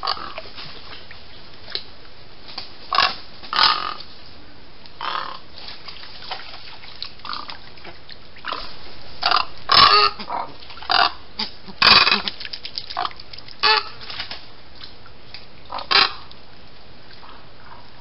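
Wading birds in a swamp calling: about a dozen short, coarse calls at irregular intervals, loudest in a cluster from about nine to fourteen seconds in, over a steady background hiss.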